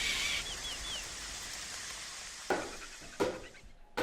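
Outdoor ambience with a steady hiss and a bird's three short falling chirps in the first second. In the second half come two sharp struck or plucked sounds, each dying away quickly.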